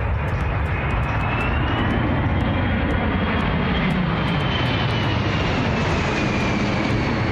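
Boeing C-17 Globemaster III military jet transport flying low overhead, with the steady roar of its four turbofan engines. A high whine over it rises slightly, then falls as the jet passes.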